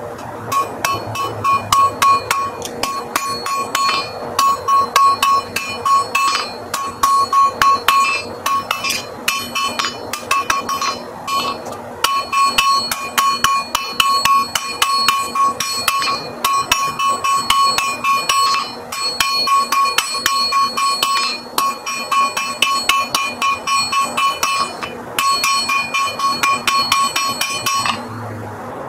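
Blacksmith's hand hammer striking hot iron on an anvil, the anvil ringing with each blow, sped up to double speed. The blows come in fast runs with short pauses and stop shortly before the end.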